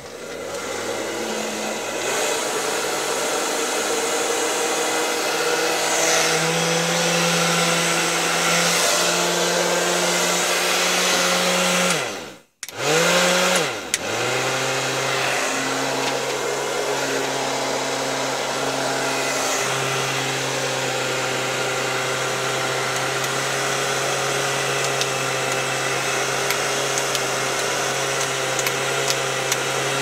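Megaturbo hair dryer running after its repair: its fan motor blows steadily with a hum. About twelve seconds in it cuts off suddenly, then comes straight back on, the motor spinning up again and settling at a lower hum.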